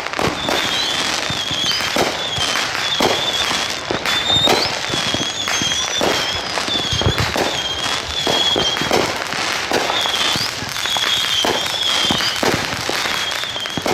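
Consumer fireworks going off: a steady run of bangs and pops, with a high, wavering whistle that runs almost throughout.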